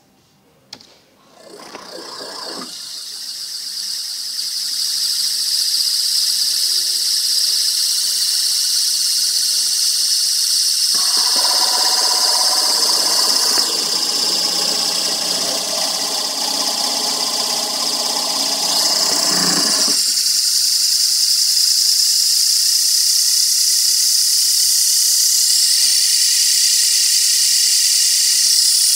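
Hollow-shaft electric motor under TI InstaSpin control giving off a loud, steady high-pitched whine that starts about a second in and builds over the next few seconds. For several seconds in the middle a lower, rougher hum joins the whine.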